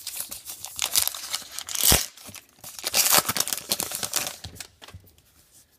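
Foil baseball card pack wrapper being torn open and crinkled, with a sharp rip about two seconds in; the crinkling dies away after about four and a half seconds.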